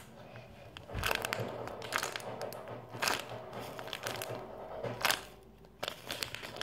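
Clear plastic wrapper crinkling as a foam squishy toy inside it is squeezed and turned in the hands, in irregular bursts of crackling about a second apart.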